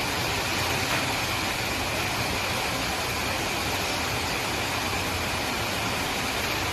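Heavy rain falling, a steady even hiss that fills the room.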